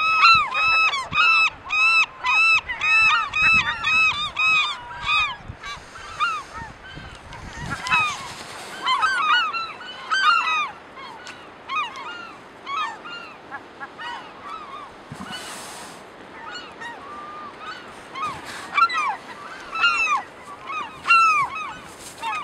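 Gulls in a nesting colony calling: a quick run of repeated yelping calls, about two or three a second, over the first five seconds, then scattered calls from several birds.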